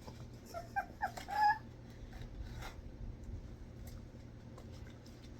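A dog making a few short, high whining vocal sounds that bend up and down in pitch, about a second in, followed by faint clicks.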